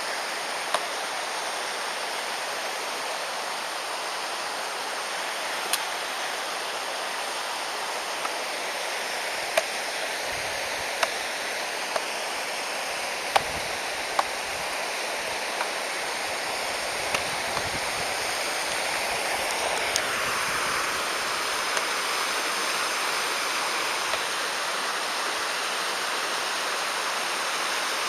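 Mountain stream rushing steadily, with a few scattered sharp clicks over it.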